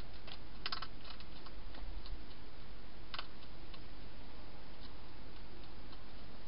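Light clicks and scratches from a wild hedgehog moving right up against the camera: a quick cluster about a second in and a single click about three seconds later, over a steady hiss.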